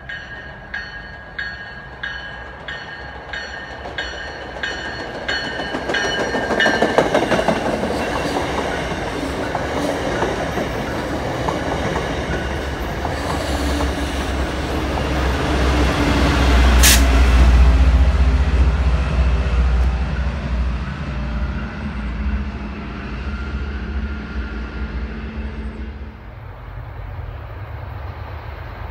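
MBTA commuter rail diesel train passing close by. A bell rings about twice a second at first, then the rush and rattle of the bilevel coaches build, with the locomotive's low rumble loudest about two-thirds through and one brief sharp high screech. The noise dies down near the end.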